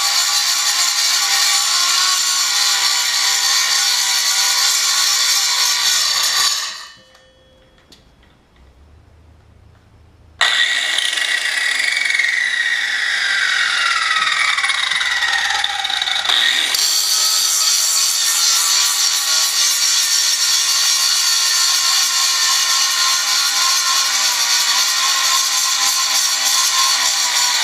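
Chicago Electric 7-inch angle grinder grinding into a steel railroad rail. About six seconds in the grinding stops for a few seconds. It then starts again abruptly with a whine that falls in pitch over several seconds, and settles into steady grinding.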